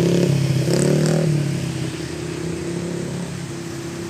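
A motor vehicle's engine running, loudest in the first second and a half with a brief rise in pitch, then fading to a steady, quieter hum.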